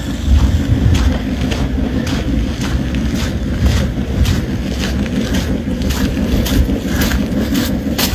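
Wind rumbling on a phone's microphone, with footsteps on wet ground about twice a second.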